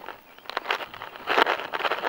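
Footsteps walking across grass, a few uneven steps.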